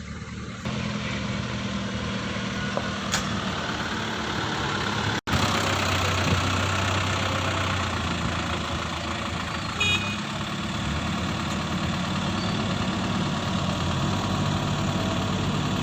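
Huina radio-controlled construction machines running, giving a steady engine-like hum. The sound drops out for an instant about five seconds in.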